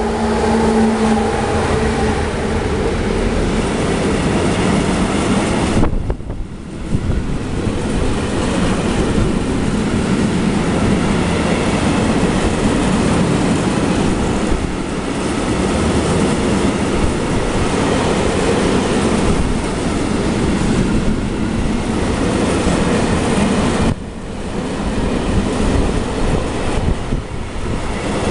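Electric locomotive and a long freight train passing close by at speed: a steady loud rumble and clatter of wagon wheels on the rails. A pitched hum is heard as the locomotive goes by in the first couple of seconds, and the noise drops briefly twice.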